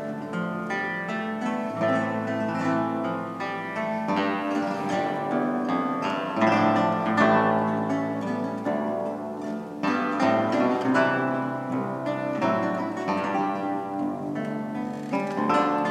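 A theorbo and a second lute-family instrument playing a baroque passacaglia together, a continuous flow of plucked notes over low bass strings.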